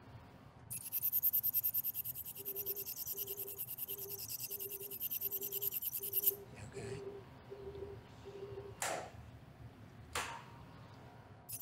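Tenex ultrasonic tenotomy system running during an Achilles tendon treatment: a rapid, rhythmic high pulsing hiss that stops about six seconds in, with a short low electronic beep repeating about every two-thirds of a second. Two brief knocks near the end.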